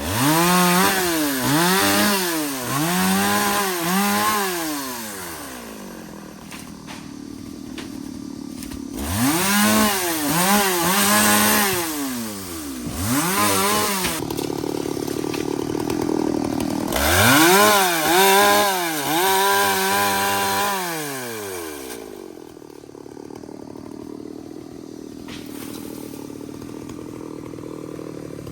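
Two-stroke chainsaw revving up and dropping back over and over, in three spells of several revs each, with the engine running quieter in between and near the end.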